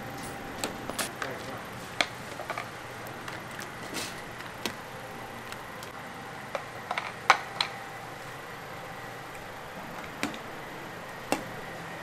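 Metal soup ladle clinking and knocking against the rim of a large metal soup pot in short, sharp, scattered strikes, with a quick cluster of them a little past the middle, over a steady background hum.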